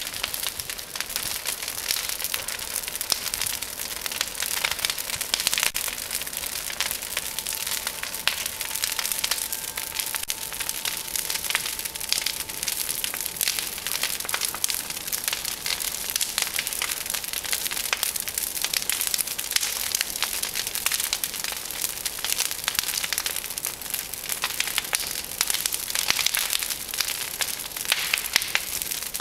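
A large brush-pile bonfire of dead tree branches burning, crackling densely and continuously with many sharp snaps.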